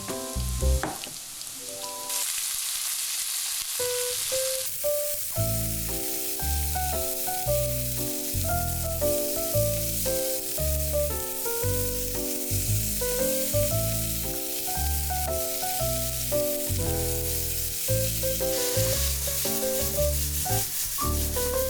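Chopped old chonggak (young radish) kimchi sizzling as it fries in scallion oil in a pan; the sizzle starts about two seconds in. Background music with a steady beat plays over it.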